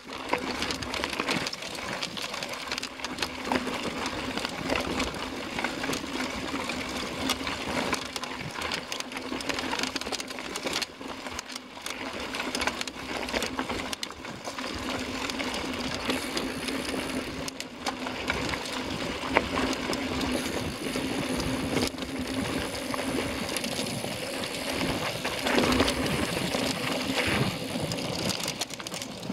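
Mountain bike riding over rough, rocky dirt singletrack, heard from a camera on the rider: continuous tyre crunch on gravel with the constant clatter and rattle of the bike and camera mount over stones, a steady hum underneath.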